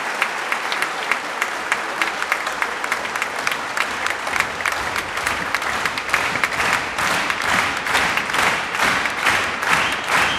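Audience applauding in a large concert hall: a dense patter of many hands clapping that grows louder about two-thirds of the way through.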